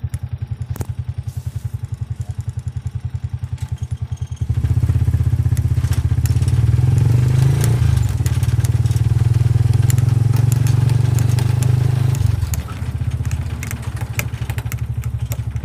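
Small motorcycle engine heard from inside a passenger cab, running with a rapid, even pulse. About four and a half seconds in it grows much louder as it pulls harder, then eases back about twelve seconds in.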